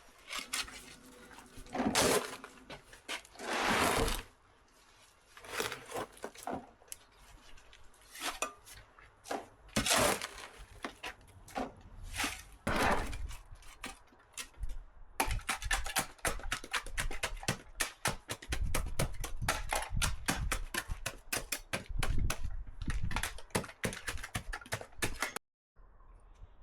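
Metal hand tools scraping and knocking against wet concrete and stone while concrete is shovelled and placed: a run of separate scrapes and knocks, then a long stretch of fast, dense clicking and clattering that stops suddenly near the end.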